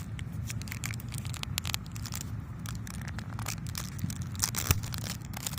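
Clear plastic film wrapping on a firework crinkling and tearing as it is handled and pulled open, a busy run of small irregular clicks and rustles.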